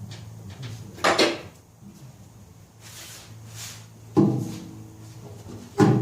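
Heavy steel front-loader parts being shifted and set down: a loud clank about a second in, a softer scraping slide in the middle, then two more clunks with a brief metallic ring near the end, over a steady low hum.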